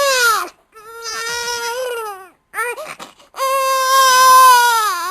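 Infant crying in long, high wails that fall in pitch at the end of each: a short cry at the start, a longer one about a second in, brief catching breaths around three seconds in, then the longest and loudest wail.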